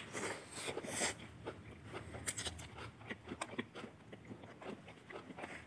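Close-up eating sounds: chewing and slurping of noodles with many small wet mouth clicks, and a few louder slurps about a second in and just past two seconds.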